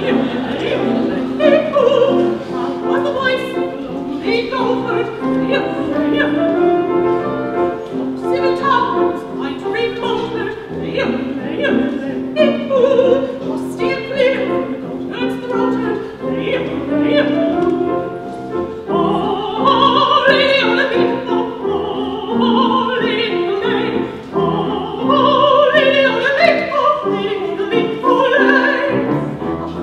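A woman singing a solo, her melody held over steady sustained notes of accompaniment.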